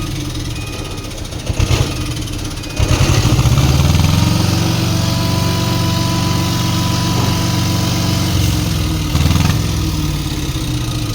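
Heavy diesel truck engine running, getting louder about three seconds in and then holding a steady drone with a faint whine above it, as the prime mover pulls away with its load.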